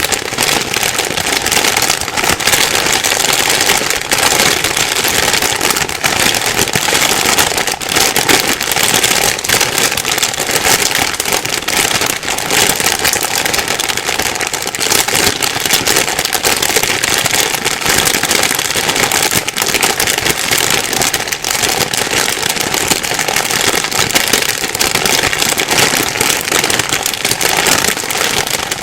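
Plastic bag being rustled and crumpled continuously, a dense crinkling crackle with no pauses.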